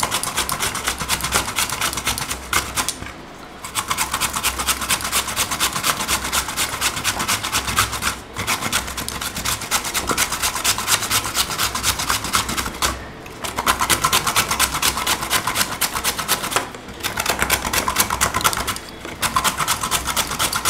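Peeled green mango being grated on a handheld grater's metal blade: rapid rasping strokes with a few short breaks.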